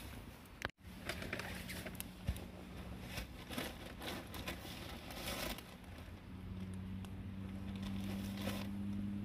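Wood campfire crackling with irregular small pops. A low steady hum runs underneath and grows stronger in the second half.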